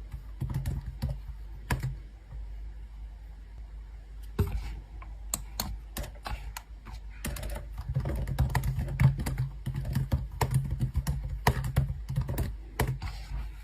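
Many light, irregular clicks and taps in quick succession, over a low steady hum.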